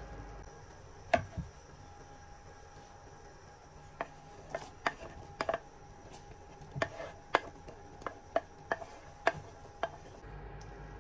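Wooden spoon knocking and scraping on a wooden cutting board as diced onion and chopped green onion are swept off it into a pan. There is a single sharp knock about a second in, then a run of about a dozen quick taps from about four seconds on.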